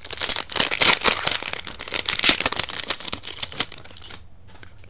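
Foil booster pack wrapper crinkling loudly as it is torn open and the cards are pulled out. The crackling stops about four seconds in.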